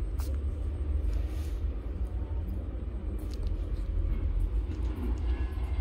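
A steady low rumble, with faint scattered clicks and smacks from puppies suckling at their mother's teats.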